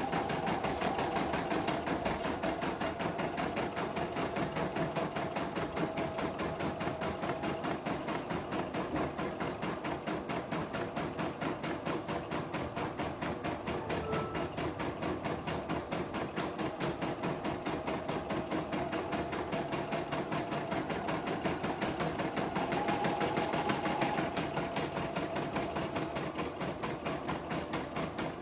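CNY E960 computerized embroidery machine stitching out a design: the needle knocks in a rapid, even rhythm over a steady motor hum.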